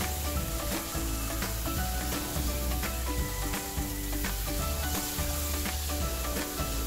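Water from a garden hose spray wand showering onto wet potting soil in a large plastic pot: a steady hiss. Background music with changing notes plays along with it.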